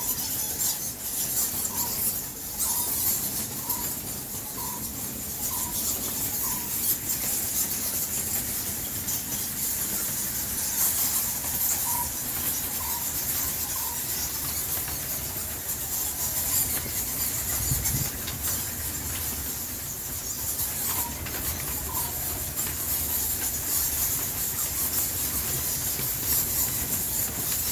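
A large bat colony squeaking inside a rock-crevice cave: a constant, dense chorus of many high-pitched squeaks.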